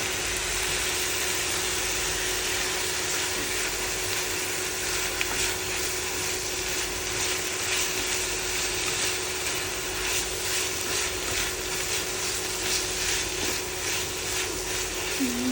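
Stir-fry of chicken and egg sizzling in a pan with freshly added soy sauce, while a spatula stirs and scrapes it in quick, irregular strokes from about five seconds in.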